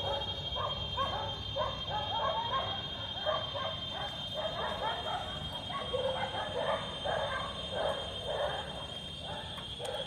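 A dog yapping over and over, two or three short barks a second, with a steady high-pitched drone underneath.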